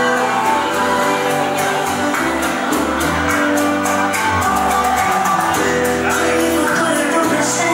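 Bachata song with a singing voice over a steady percussion beat and bass.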